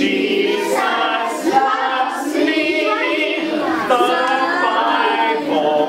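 Group of children singing a song together.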